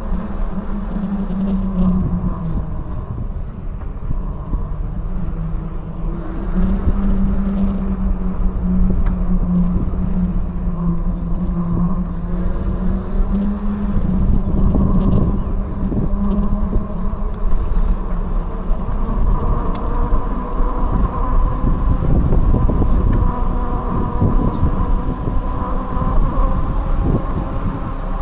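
Electric bike in motion: a steady motor hum that steps up and down in pitch as speed changes, over low rumble from wind on the microphone and tyres on a concrete path. After about 14 seconds the hum gives way to mostly wind and road rumble.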